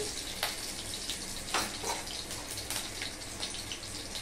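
Oil sizzling in an aluminium kadai as green and dry red chillies and ground spices fry over a gas flame: a steady hiss with a few sharp crackles.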